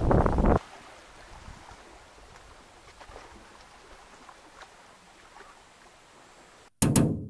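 Wind buffeting the microphone, cutting off abruptly after about half a second. It gives way to a faint, steady outdoor background with a few light ticks. Near the end comes a short, loud burst of noise that fades quickly.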